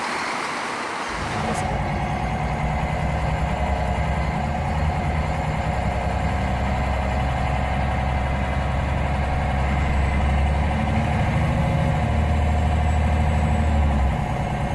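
Scania DC9 nine-litre inline five-cylinder diesel engine running steadily, a low even drone. It starts about a second in, after a short noisier passage, and its lowest hum drops away near the end.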